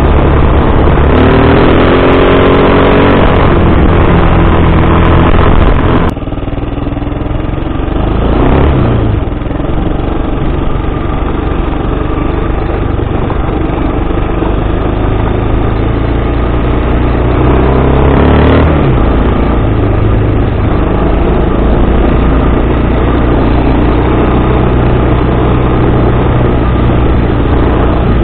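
Engine of a Bashan 250 cc quad bike under way, revving up and easing off several times. The note climbs in the first few seconds, drops off suddenly about six seconds in, then climbs and falls again twice more.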